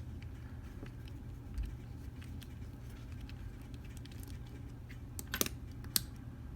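Small metal tools being handled on a padlock: scattered light clicks and taps, with two sharper clicks near the end, over a steady low hum.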